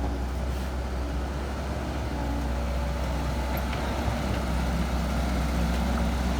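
Heavy diesel engine of earthmoving machinery running steadily, a low rumble with an engine hum that grows a little louder toward the end.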